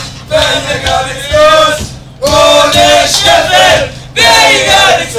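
A group of young men chanting a song together at the top of their voices, in three loud phrases with short breaks between them. A steady low bus engine hum runs underneath.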